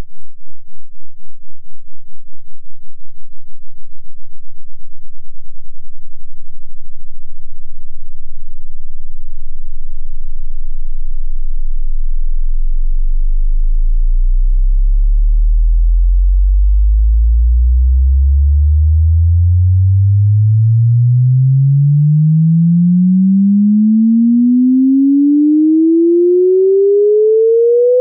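Exponential sine-wave test sweep: a single pure tone rising steadily in pitch from the infrasonic and deep bass range, first heard as a fast pulsing flutter, up to a low-mid hum of about 500 Hz by the end.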